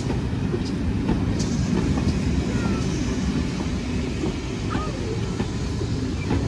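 Railway passenger coaches rolling past at close range: a steady low rumble of steel wheels on the rails, with a few faint clicks.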